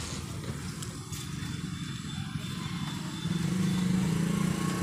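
An engine running steadily, growing louder about three seconds in.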